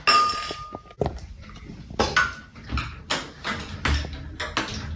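A run of irregular clattering knocks, about a dozen in quick succession, with a brief high ping ringing near the start.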